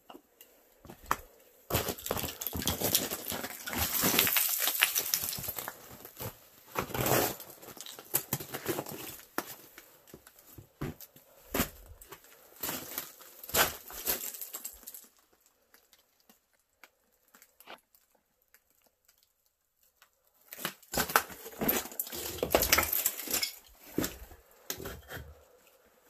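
A person scrambling down between rocks: clothing rustling and boots and hands scuffing and scraping on stone, in irregular bursts with scattered knocks, broken by a quiet stretch of several seconds late in the clip.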